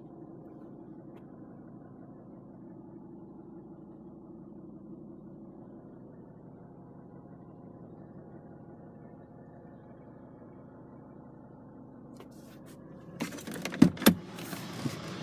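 Volvo V70 2.4 D5 five-cylinder turbo diesel engine idling steadily, heard from inside the cabin. About thirteen seconds in come a few sharp clicks and knocks, the loudest sounds here.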